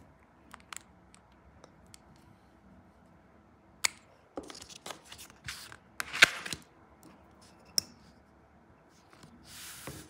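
Plastic scraper card pulled across a metal nail-stamping plate in a few short scrapes about halfway through, clearing off excess black stamping polish, with scattered small clicks and taps of the polish bottle and tools. Near the end, a soft rub as the silicone stamper is pressed and rolled over the plate to pick up the print.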